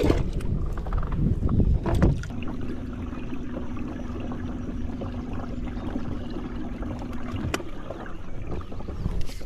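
Wind buffeting the microphone as a low rumble. A steady hum runs from about two seconds in to about seven and a half seconds, and there are a few short knocks.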